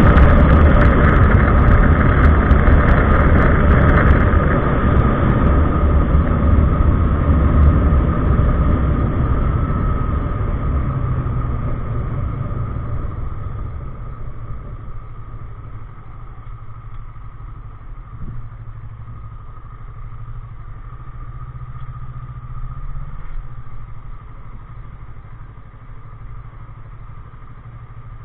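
Kawasaki ER-6n parallel-twin motorcycle engine as the bike slows down: the loud running noise fades over the first dozen seconds or so, and the engine settles into a steady low idle.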